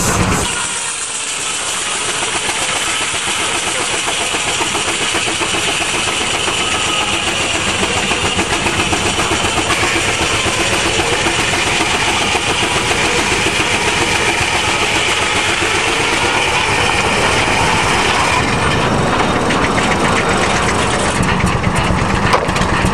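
A steam-powered sawmill running: a 60-inch circular saw blade belt-driven by a steam traction engine makes a loud, steady mechanical din. A brighter, higher sound joins in the middle, as the blade works through the wood.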